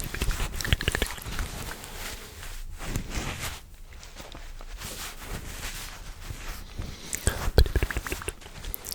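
Close-miked ASMR trigger sounds: an irregular run of soft clicks and crackles. They thin out in the middle and return with a few sharper clicks near the end.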